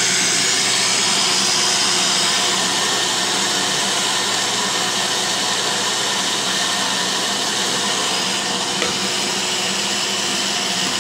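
Electric mixer grinder running steadily at speed, grinding a dry mix of seeds in its jar.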